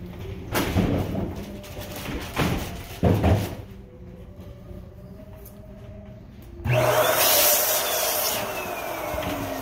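Wooden panels of an operable partition wall being pushed along their overhead track. Several knocks and rumbles come first; then, about seven seconds in, a louder continuous rolling rumble starts suddenly, with a slowly falling squeal from the track.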